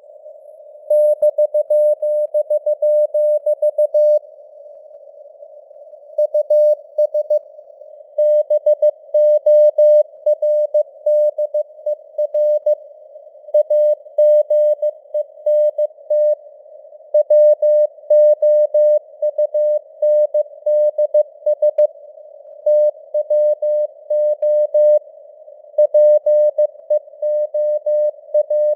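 Morse code (CW) sent at 15 words per minute as a single steady mid-pitched tone keyed on and off in short and long elements, spelling out news headlines. The groups of letters are broken by brief pauses, over a narrow hiss of simulated radio noise.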